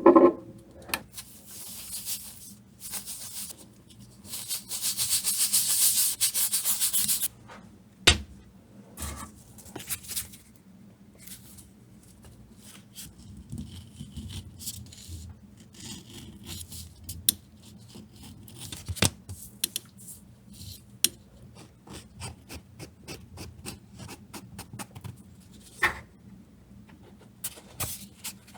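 Hand work on leather with small hand tools. About four seconds in comes a fast, rhythmic rubbing that lasts about three seconds; elsewhere there are scattered small clicks and taps, with a sharp knock near eight seconds and another near nineteen.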